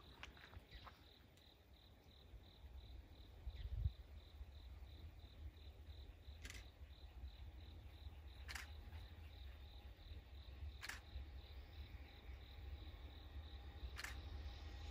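Insects chirping in a steady pulsing rhythm, about four pulses a second, over a low rumble. Four sharp, brief sounds come a few seconds apart in the second half.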